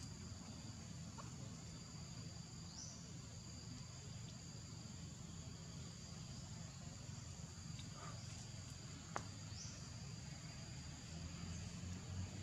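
Faint, steady high-pitched drone of insects at two held pitches over a low background rumble. Two short rising chirps come about three and nine seconds in, and a single sharp click about nine seconds in.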